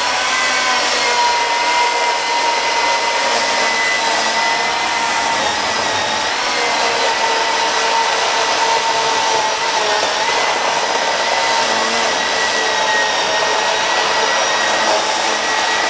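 Small electric chainsaw cutting through a thick log, a steady high motor whine with the chain rasping through the wood. The pitch wavers and sags a little as the saw works under load.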